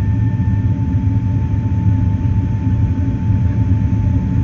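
Airbus A380 cabin noise during the approach: a steady low rumble of engines and airflow, with a thin steady whine above it.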